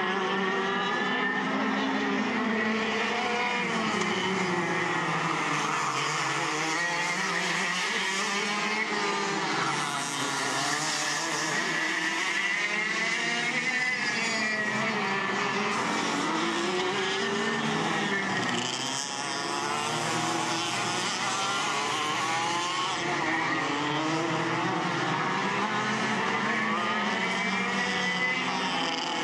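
Engines of several racing go-karts lapping a circuit, their pitch rising and falling as they accelerate and brake for the corners, with the notes of different karts overlapping throughout.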